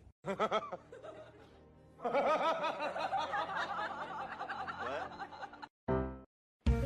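Laughter with music, a run of quick, wavering laughs about two seconds in that cuts off shortly before the end.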